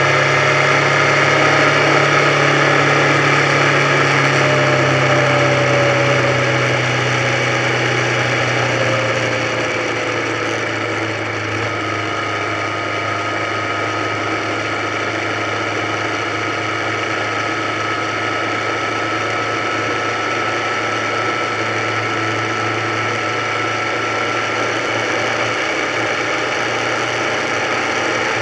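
Motorcycle engine running at road speed under wind and road noise. In the first third the engine note drops and gets a little quieter as the throttle eases, then it holds steady.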